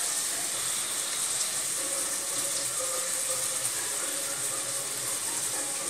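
Sliced onions and whole spices sizzling steadily in hot ghee and coconut oil in an aluminium pressure cooker, with chopped coriander and mint leaves just dropped in. An even hiss that holds at one level throughout.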